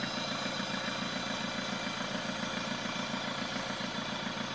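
Tracker's turbocharged engine idling steadily with an even pulsing beat, warming up after a thermostat replacement.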